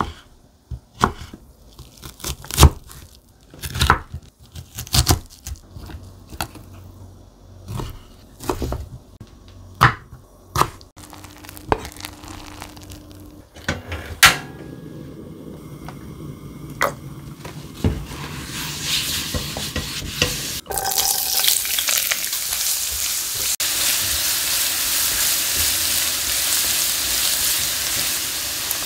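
Irregular knocks and taps of kitchen prep for the first half. About eighteen seconds in, food starts sizzling in a hot oiled frying pan, and the sizzle grows and then holds steady as the fried rice ingredients cook.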